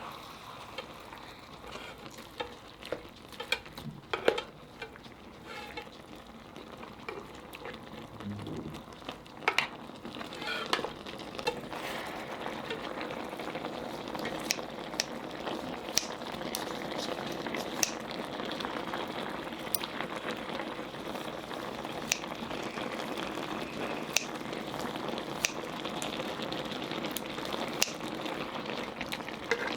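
Dak-galbi (spicy chicken stir-fry with a little broth) sizzling and bubbling in a pan, with sharp clicks of a utensil against the pan as it is stirred. The sizzle grows louder and steadier about ten seconds in.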